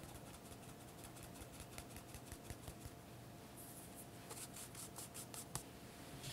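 Fine-mesh metal sieve being shaken to sift cake flour and cocoa powder into a glass bowl: a fast, even run of light ticks, about five a second. The ticks grow louder past halfway and stop shortly before the end.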